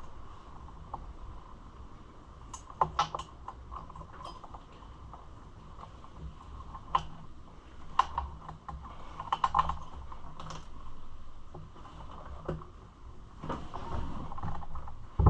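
Irregular clicks and light clinks of hand tools and small metal parts being handled while a dirt bike's carburetor area is taken apart, with a louder knock at the very end.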